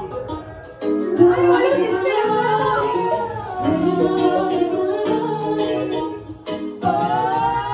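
Amplified pop music with female vocals: a girl group singing on stage over a backing track through the club's sound system.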